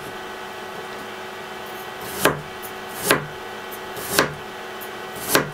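Chef's knife slicing through a raw carrot onto a wooden cutting board: four separate knife strikes about a second apart, beginning about two seconds in.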